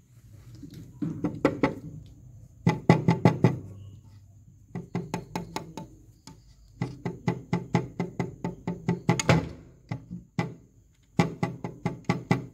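Fingers tapping quickly on a window pane: several runs of sharp knocks on the glass, with short pauses between them.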